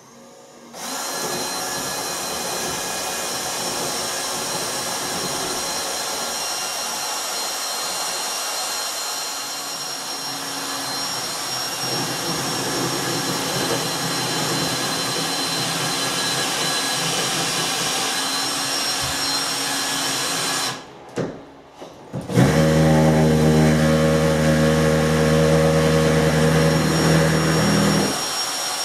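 Electric drill boring mounting holes in a bathroom wall for towel radiator brackets, with a vacuum cleaner running alongside to catch the dust. The noise is steady for about twenty seconds, stops briefly about 21 seconds in, then comes back as a louder, deeper hum with a steady pitch until just before the end.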